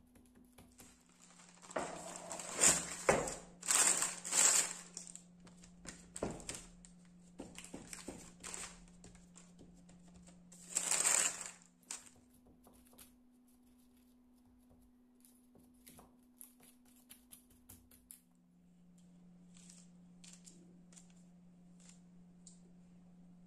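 Baking parchment crinkling and rustling under hands as dough is patted and pressed into a paper-lined round baking pan, with loud bursts of crackling about two to five seconds in and again around eleven seconds. Later come faint light ticks as a silicone pastry brush spreads butter over the dough, over a low steady hum.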